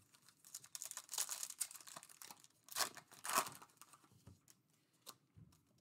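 Foil wrapper of a Donruss Elite trading-card pack crinkling and tearing as it is ripped open by hand, in crackling bursts over about three seconds. A few faint rustles follow as the cards are drawn out.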